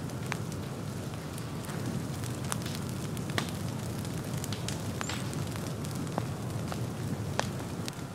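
Forest ground fire burning through dry leaf litter and fallen logs: a steady low rushing with scattered sharp crackles and pops at irregular intervals.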